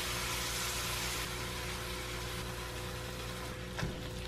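Steady low hum over a faint hiss of ground beef frying in a cast iron pan, with one light tap, likely the wooden spatula, just before the end.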